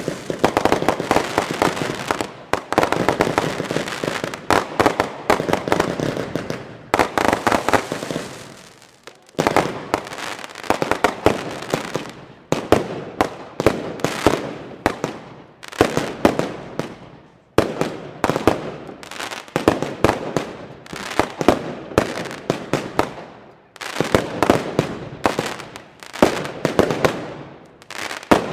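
Aerial fireworks going off in quick succession: sharp reports followed by dense crackling from white crackling-star bursts, with a fresh volley about every two seconds.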